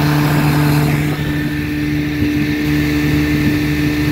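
1956 Gale Buccaneer 12 hp two-stroke outboard running steadily at speed, with the rush of water and wind beneath its steady drone.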